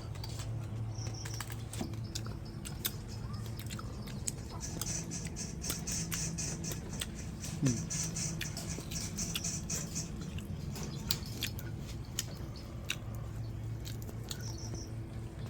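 Someone chewing crisp deep-fried rat, with many small irregular crunches.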